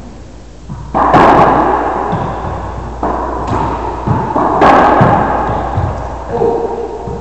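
Racquetball play: the hollow rubber ball struck hard off racquets and the court walls, two loud sharp cracks about a second in and a little before five seconds, with lighter knocks between. Each crack rings in the enclosed court.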